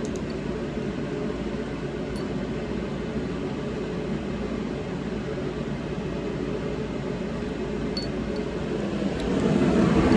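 A steady mechanical hum, with a few faint clicks and growing a little louder near the end.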